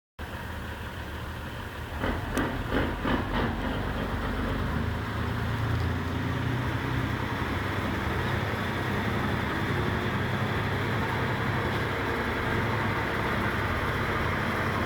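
Diesel delivery truck engine idling with a steady low rumble, left running while the truck stands parked. A quick run of four or five knocks comes about two seconds in.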